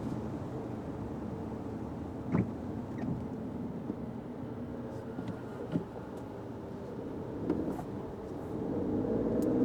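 Fiat 500X driving on a wet road: a steady engine and tyre hum with a few short knocks, the loudest about two seconds in. Near the end the engine note rises as the car speeds up.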